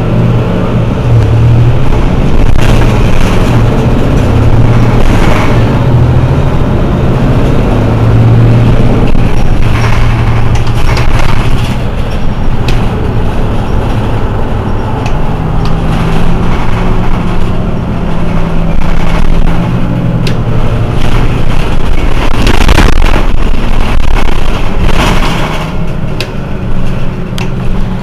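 Mercedes-Benz Citaro C2 city bus idling at a standstill with a steady engine hum. The hum rises in pitch for a few seconds past the middle and then settles back. A couple of brief hisses come near the end.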